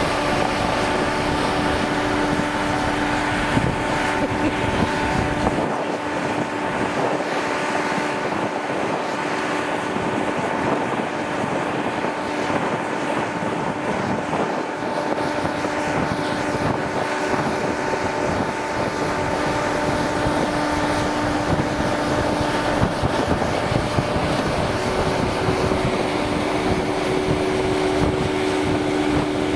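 BOSS railcar mover's diesel engine running steadily as the machine travels along the track, with a constant hum and some wind noise on the microphone.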